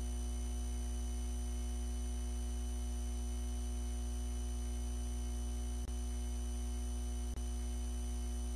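Steady electrical hum and buzz with no music: a strong low hum with several faint constant tones above it. It cuts out for an instant twice in the second half.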